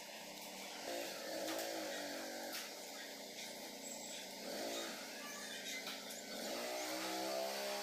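A motor vehicle engine passing outside, its pitch rising and falling in several swells, the longest near the end.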